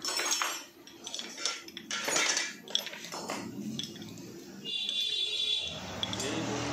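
Metallic clinks and knocks as the pneumatic grease pump is handled, then near the end the pump starts running on air: a steady high whine joined by a low hum.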